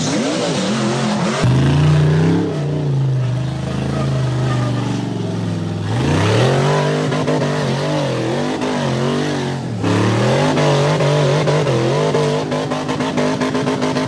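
Side-by-side UTV engines revving hard off-road, the pitch repeatedly climbing and dropping as the throttle is worked. The sound changes abruptly about a second and a half in and again near the ten-second mark, as from one machine to another. Near the end it settles to a steadier pitch with a fast pulsing beat.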